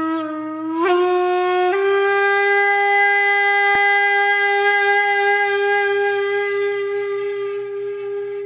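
One long wind-instrument note with a reedy, harmonic-rich tone, stepping up in pitch twice in the first two seconds and then held steady, easing off slightly near the end.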